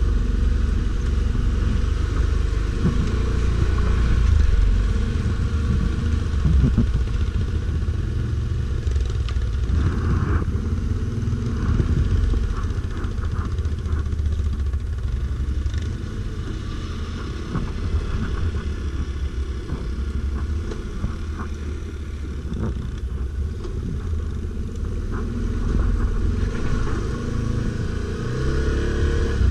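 Stels Guepard 850 ATV engine running while riding off-road, its level rising and easing with the throttle, with some clatter over rough ground.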